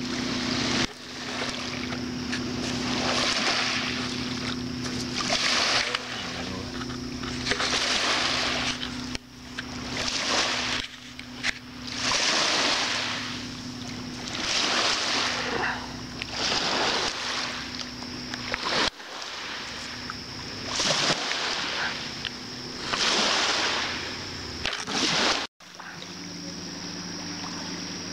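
Paddle strokes splashing in lake water as an inflatable raft is paddled, a surge of splashing about every two seconds, over a steady low hum.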